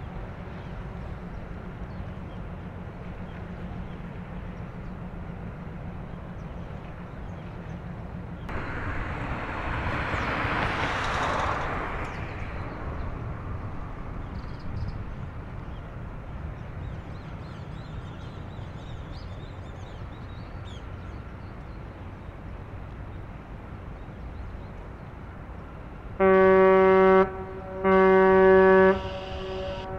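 Container ship's whistle sounding two short blasts near the end, each about a second long, a deep steady tone over a steady low rumble. A broad rush of noise swells and fades about nine to twelve seconds in.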